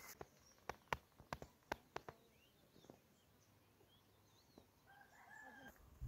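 A quick run of about ten sharp clicks in the first two seconds, then faint bird chirps, and near the end a short, faint rooster crow.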